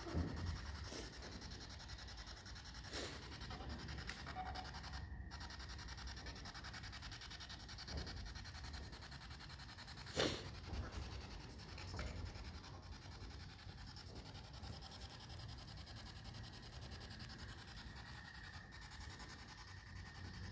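Quiet background hiss with a few faint clicks, the sharpest about ten seconds in.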